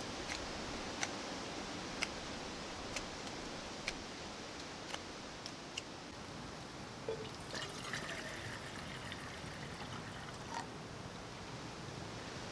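Knife carving strokes on wood, a sharp click about once a second over a steady background hiss. Near the middle, a few seconds of denser hissing.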